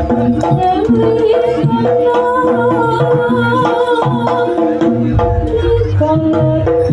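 Jaranan gamelan music: kendang hand drums beat under a steady run of repeated metallophone notes. A deep drum joins about five seconds in.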